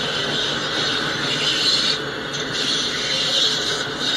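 Freight train autorack cars rolling past: the steady rolling rumble and rattle of steel wheels on rail, with a hiss higher up that swells and fades every second or so.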